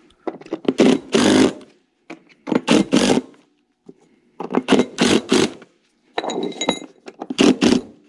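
Cordless DeWalt driver running in about five short bursts as it drives screws through a speaker mounting bracket into a ceiling tile.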